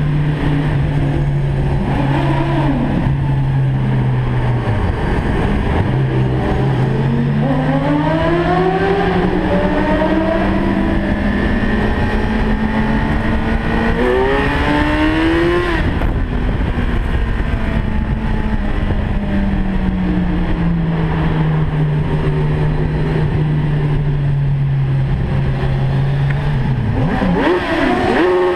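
Car engine and exhaust heard inside a road tunnel: a steady low drone, then a long rev rising in pitch from about seven seconds in that climbs faster and cuts off sharply around sixteen seconds, and another short rev near the end.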